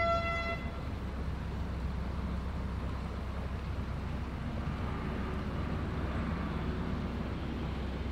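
Narrowboat's diesel engine running steadily at low cruising revs, a low rumble. A held horn tone cuts off about half a second in.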